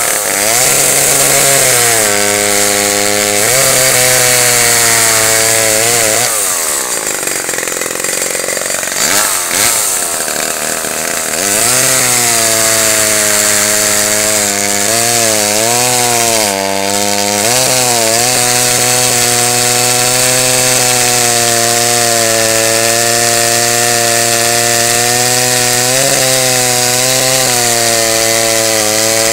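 Homelite two-stroke chainsaw cutting through a firewood log, its engine pitch sagging under load and picking back up several times as it bites into the wood. About six seconds in the engine note weakens and wavers for several seconds before it runs strongly again.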